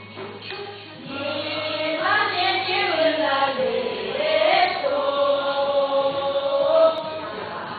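A group of young voices singing a Tibetan song together in unison, holding long notes. The singing swells up about a second in after a quieter start.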